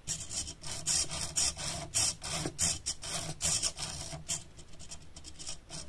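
SG90 micro servo whirring in short spurts, a few a second, as it drives the wooden pen-holder carriage up and down on its rods, with the sliding parts rubbing and scraping. The spurts are strongest in the first four seconds and fainter after.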